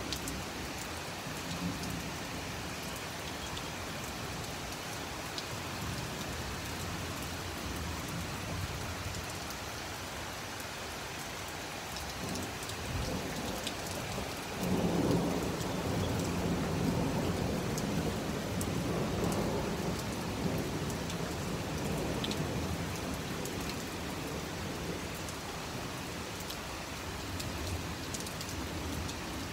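Heavy rain falling steadily, with sharp drop ticks throughout. About halfway through a low roll of thunder swells up suddenly and fades out over several seconds.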